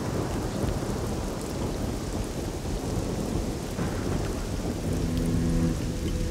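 Rain falling steadily with a low rumble of thunder, a stormy soundscape. About five seconds in, held notes of background music come in over the rain.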